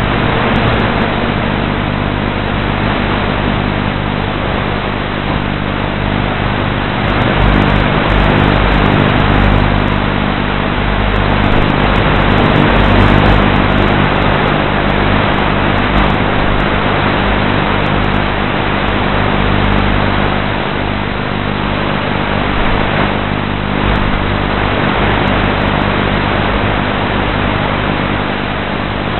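Steady hum of an RC model aircraft's electric motor and propellers, heard from on board, with fixed low tones under a rushing wind-like noise that swells slightly a third of the way in.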